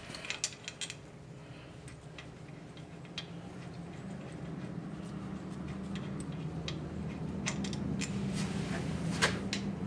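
Scattered sharp clicks and taps of hands handling parts on an engine, over a steady low hum that slowly grows louder; the loudest click comes near the end.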